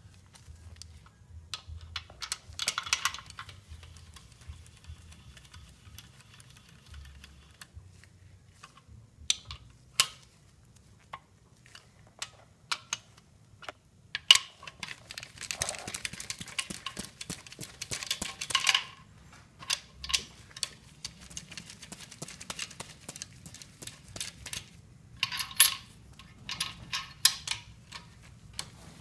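Hand ratchet on a long socket extension clicking in short runs while the main bearing cap bolts of an engine block are run down, with metal tools clinking in between.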